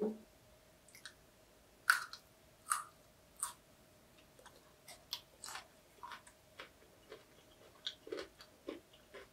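A person chewing food close to the microphone: three crisp crunches about three-quarters of a second apart, then quieter, irregular chewing sounds.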